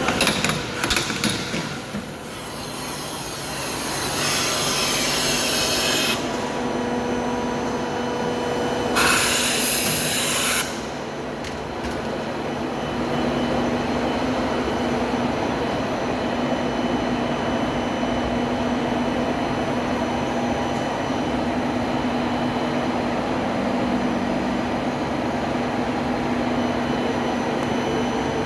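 DMS 48 tube punching machine running with a steady hum, a few clanks in the first two seconds, and two hissing bursts, one about four seconds in lasting two seconds and a shorter, louder one about nine seconds in.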